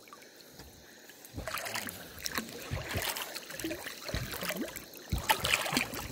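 River water sloshing and splashing irregularly around people moving through it, starting about a second and a half in after a quiet start.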